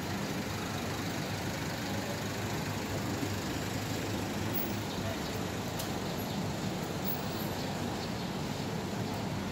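Steady city street background: a constant low hum of traffic, with no single event standing out.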